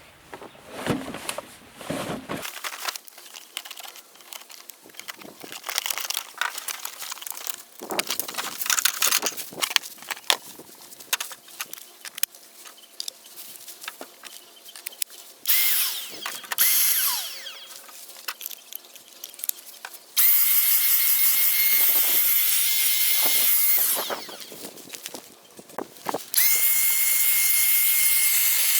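Packaging and plastic parts being handled, with clicks and rustles, then the Parkside 20V cordless handheld vacuum cleaner's motor is switched on and runs with a steady high whine for about four seconds. It is switched off, and comes on again near the end.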